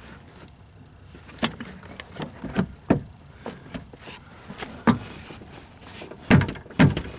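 Irregular knocks, clicks and light rustling of hands handling things, with a handful of sharp knocks spread over several seconds, the loudest two near the end.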